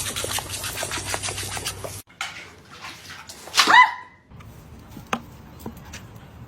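A dog gives one loud bark about three and a half seconds in, after two seconds of a noisy rustle.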